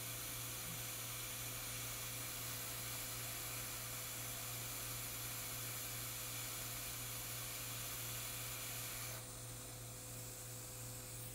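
Hot air rework station blowing a steady hiss of hot air onto a small chip on a logic board to desolder it, over a low steady hum. The hiss drops about nine seconds in, as the chip comes off its pads.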